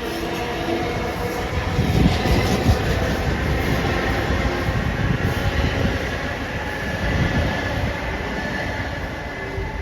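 LIRR M7 electric train running along the tracks: a steady rumble of wheels on rail, growing louder about two seconds in.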